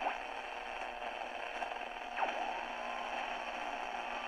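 Steady hiss of band noise from an HF amateur radio transceiver's speaker, held within the narrow voice band of a single-sideband receiver between transmissions. A faint whistle slowly rises in pitch from about two seconds in.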